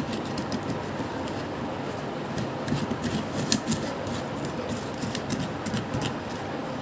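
Hands kneading a salt-and-toothpaste dough close to the microphone: soft squishing with many small, irregular clicks and crackles over a steady background hiss.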